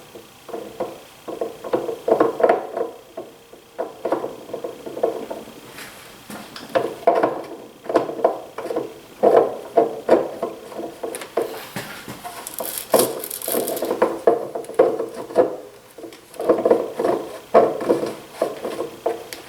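Repeated clinks and knocks of metal planer parts being handled and pressed into place, each with a short ring, in irregular bunches.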